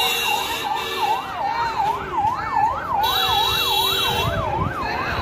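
Police siren yelping, a rapid wail rising and falling about two and a half times a second. A second steady high tone sounds over it at the start and again from about three seconds in.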